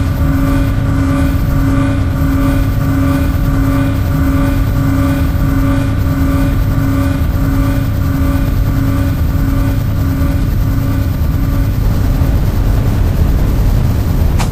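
Science-fiction spaceship sound effect: a deep rumbling drone with a pitched tone pulsing on top, about three pulses every two seconds. The pulsing stops about twelve seconds in, leaving the rumble.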